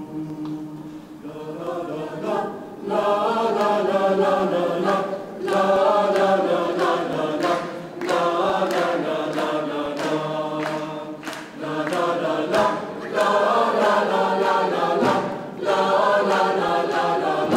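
Mixed choir of men and women singing in sustained phrases with short breaks between them; it begins with a quiet low held note and swells to full voice about three seconds in.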